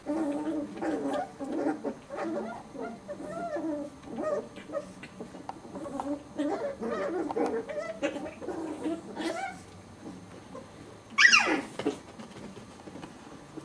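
Chihuahua puppies making a string of small growls and squeaky yaps as they wrestle in play. About eleven seconds in, one lets out a single loud, sharp yelp that drops in pitch.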